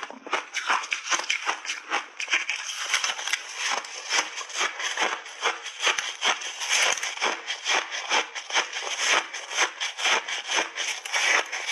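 Close-up crunching and chewing of hard frozen ice chunks, in quick irregular crackling crunches, several a second, without a break.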